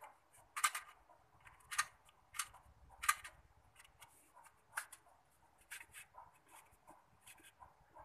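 Cardboard matchbox being handled: a string of short, irregular scrapes and taps as the box is turned, squeezed and slid in the fingers, the sharpest ones in the first three seconds.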